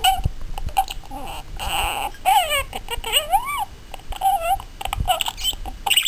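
Budgerigar chattering and warbling with its head down inside a drinking glass: a busy run of short, quickly gliding chirps and garbled talk-like notes, with a few sharp taps.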